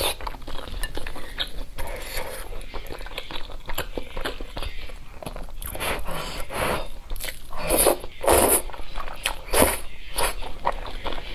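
Close-miked eating: wet chewing, lip smacks and small clicks of the mouth on saucy meat and wide glass noodles, with a puff of breath blowing on the food at the start. Louder hissing slurps come about two-thirds of the way through as the noodles are drawn in.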